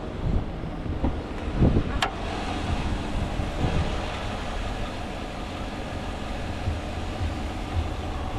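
Wind rumbling on the microphone over a steady low outdoor rumble, with one sharp click about two seconds in as the pickup's hood is opened.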